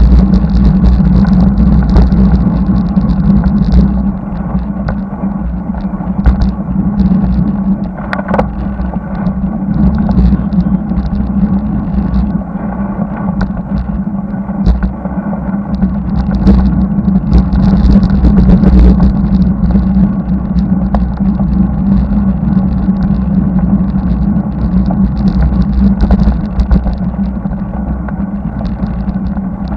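Steady, loud road noise from a bicycle-mounted camera on a highway climb: wind rumbling on the microphone, with motor traffic on the road.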